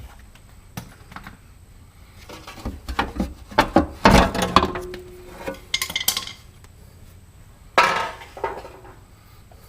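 Metal clinking and clanking as wrenches and exhaust parts are handled during a muffler install. A quick run of knocks in the middle includes a brief metallic ring, and another clatter comes near the end.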